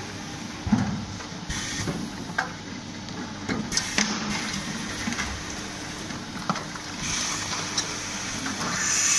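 Automatic pickle-jar filling machine running: a steady hum with scattered clicks and knocks as jars move on the conveyor. A hiss swells in the last two seconds, loudest near the end, while the jars are being filled.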